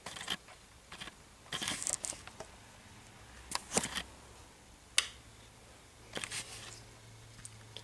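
Handling noise: a scattered run of short clicks and rustles, with one sharp click about five seconds in.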